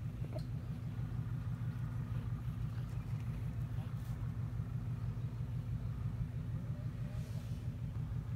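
Steady low background rumble with a rough, fluttering texture and no distinct events.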